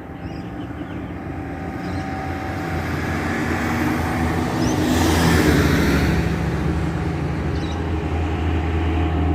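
De Havilland Canada Dash 8 Q300 twin turboprop climbing out after takeoff: a steady propeller drone with a rushing hiss, growing louder as it approaches.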